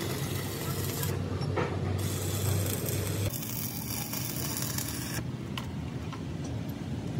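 Mechanical workshop noise from metal repair work on a truck chassis: a steady hiss with a low hum and a few light clicks, changing abruptly several times.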